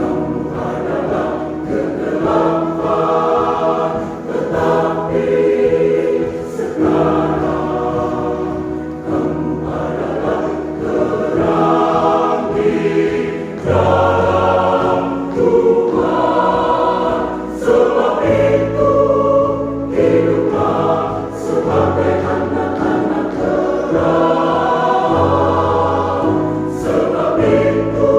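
Church choir singing a hymn in harmony, holding chords that change every second or two, with deep bass notes coming in about halfway through.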